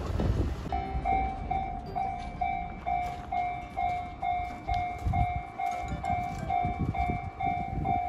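Japanese level-crossing warning bell starts up about a second in and rings on, an electronic ding repeating a little over twice a second: the crossing is closing for an approaching train.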